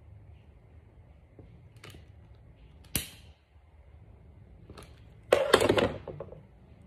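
A sharp click from a long-nosed butane utility lighter about three seconds in. Then comes a breathy blow of about a second, the loudest sound, putting out the flame on a burning sage bundle.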